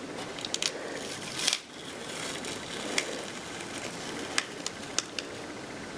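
Butcher paper and tape being peeled off a cotton cap: crinkling and rustling with scattered small crackles and clicks.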